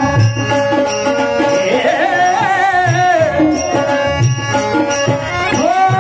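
Indian devotional bhajan music: a melody of held notes, with a sliding phrase in the middle and a new long note near the end, over drum strokes and a steady, regular percussion beat.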